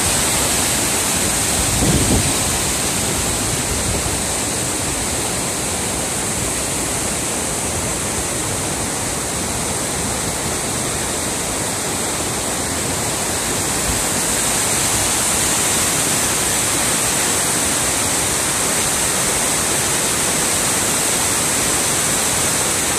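Steady rushing roar of a waterfall and a rocky mountain stream. A brief low bump comes about two seconds in.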